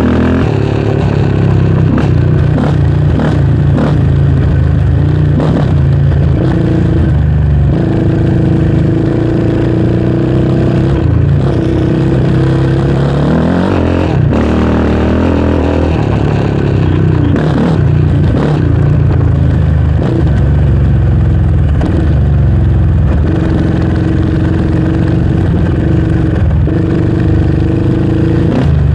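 Yamaha Raptor 700R's single-cylinder four-stroke engine running under load during a trail ride. Its pitch drops as the quad slows about halfway through, then climbs again as it accelerates. Short knocks and clatter come from the rough dirt trail.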